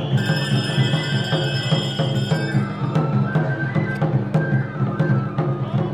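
Music led by repeated drum strikes over a steady low pulse, with a high held melody line that drops out after about two and a half seconds.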